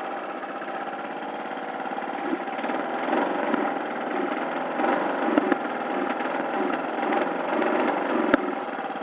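Small lawn mower engine running on petrol mixed with two-stroke oil, getting louder and surging unevenly from about two seconds in. There is a single sharp click near the end.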